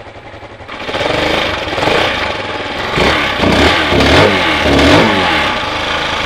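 Bashan Brozz 250's 229cc air-cooled single-cylinder OHV engine, newly assembled and on its first run, idling and then revved: the level jumps about a second in, and several throttle blips rise and fall in pitch in the second half.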